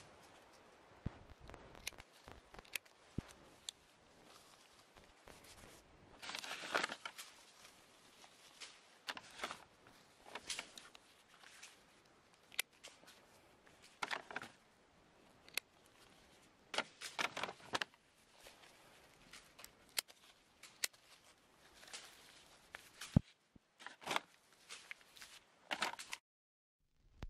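Pruning shears snipping at irregular intervals as orange stems are clipped, with brief rustling of leaves and grass between the faint, sharp clicks.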